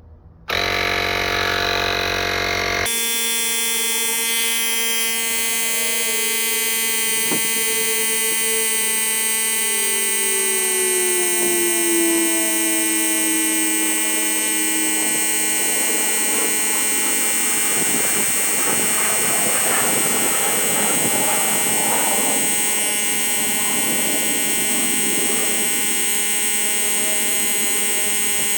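Asperx AX60 portable tire inflator starting up about half a second in, then running its small piston compressor with a steady buzzing hum while it inflates a large all-terrain car tire toward 36 PSI.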